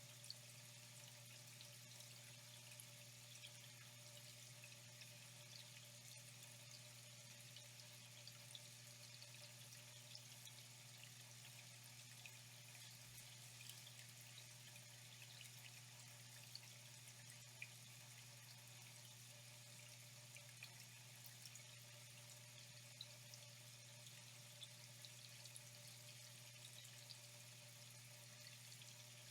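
Faint, steady flowing water with scattered small drips and splashes, over a low steady hum.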